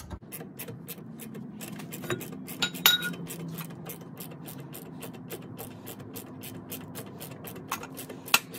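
Ratchet wrench clicking at about five clicks a second as a 10 mm bolt and nut on the parking-brake cable bracket are run back in, with a louder metallic clink about three seconds in.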